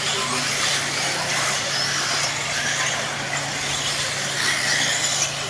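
Several brushless electric RC off-road buggies racing, their motors whining higher and lower as they accelerate and slow, over a steady hiss.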